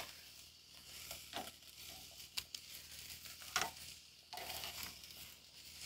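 Strip steaks sizzling faintly on a charcoal kamado grill's very hot grate. A few sharp clicks of metal tongs against the grate come as the steaks are twisted.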